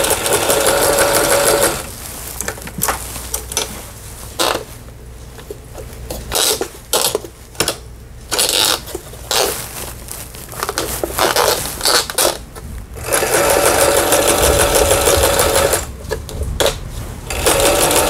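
Michelle Super Zigzag household sewing machine (Chinese-made) stitching a zigzag seam at an even, modest speed, then stopping after about two seconds. While it stands still, a string of separate clicks comes as the stitch dial is turned. It sews again for about three seconds, pauses briefly, and starts once more near the end; the repairer says its motor is weak, so it cannot run fast.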